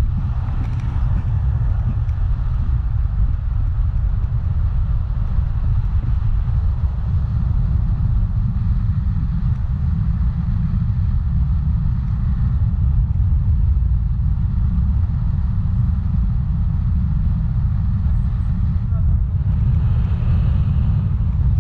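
Steady wind rush buffeting the action camera's microphone as the tandem paraglider flies, a continuous low rumble.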